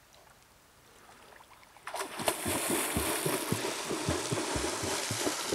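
Near silence, then about two seconds in a sudden steady rush of wind on the camera microphone, with irregular low buffeting thuds.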